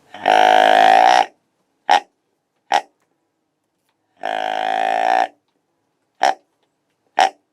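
Deer grunt call blown to imitate a buck's grunts and lure a buck in: a long grunt of about a second followed by two short ones, then the same pattern again.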